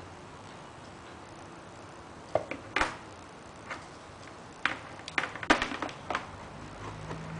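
A clipper's rubber power cord and plug being moved about on a hard tabletop: a scattered series of light clicks, knocks and rustles from about two seconds in. Near the end a low hum starts.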